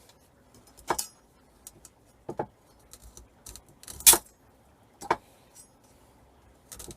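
Flex cable being stripped by hand with a knife: sharp metallic clinks and knocks of the cable, wires and blade being handled, four louder ones with the loudest about four seconds in, and fainter ticks between.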